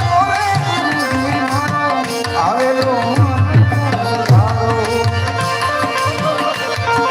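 Devotional bhajan music: tabla playing a rhythm, its low drum strokes bending in pitch, under held melodic notes and a singing voice.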